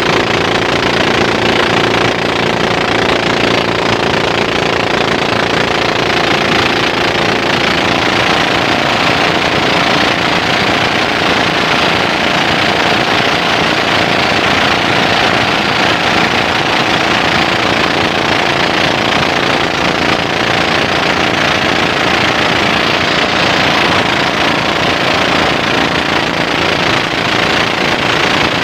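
Engine of a small motorized river boat (bangka) running steadily at speed and driving its propeller shaft, with water rushing along the hull.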